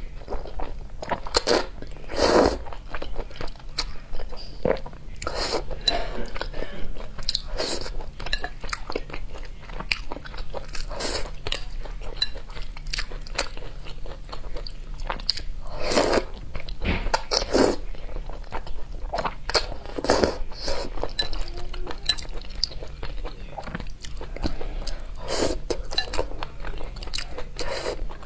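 Close-miked eating: thick saucy noodles slurped and chewed, with irregular crunchy bites and wet mouth clicks, and a few longer slurps spread through.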